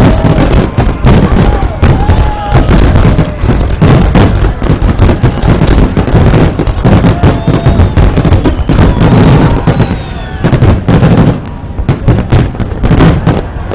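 Large fireworks display: a rapid, continuous barrage of bangs and crackles over a deep rumble, with the bursts easing slightly in the last few seconds.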